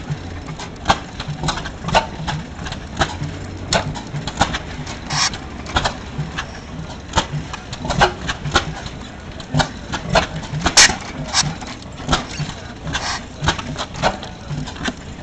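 Antique single-cylinder stationary gas engine running with uneven popping and clacking, about two or three sharp pops a second at irregular spacing.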